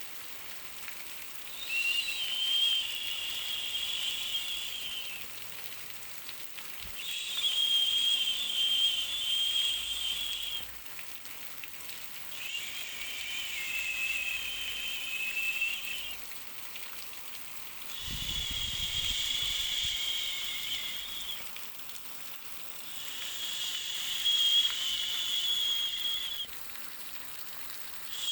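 High, buzzing insect call in bouts of about three and a half seconds, repeating about every five and a half seconds, with quieter gaps between.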